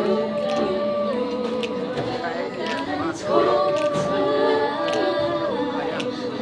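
Girls' a cappella group singing in close harmony: two long held chords, each stepping down in pitch after a couple of seconds, with a sharp click about once a second keeping the beat.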